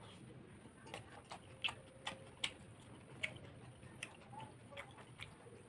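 Faint, irregular wet clicks and smacks of a person chewing and eating with his fingers, about ten of them, the loudest a little under two seconds in and again about half a second later.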